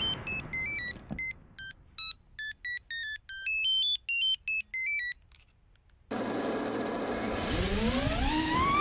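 A string of short electronic beeps at changing pitches. Then, after a pause, the Immersion Vortex 150 mini FPV quadcopter's brushless motors start spinning with a steady hum. About a second later their whine rises sharply in pitch as the throttle comes up for takeoff.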